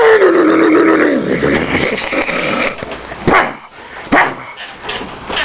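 A dog barking and growling: a long drawn-out growling bark at the start that rises and then slowly drops in pitch, then two short sharp barks about three and four seconds in.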